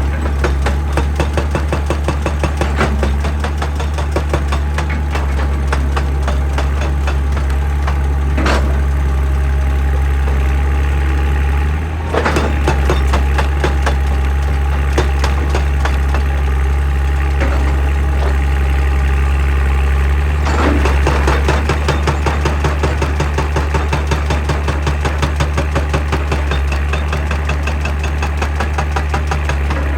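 Excavator's diesel engine running steadily under a rapid, even train of knocks from a hydraulic rock breaker hammering. A few louder single clunks are scattered through.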